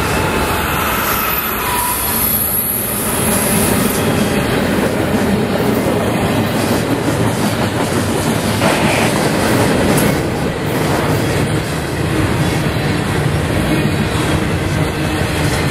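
BNSF freight train passing close by: the locomotive, then double-stack container cars rolling past with a steady rumble and clatter of wheels on rail. A thin, high wheel squeal rings in the first few seconds.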